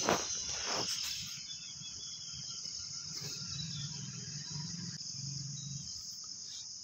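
Crickets chirring steadily in the background, a continuous high-pitched drone.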